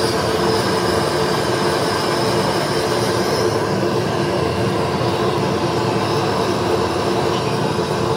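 Gas blowtorch flame burning with a steady rushing noise.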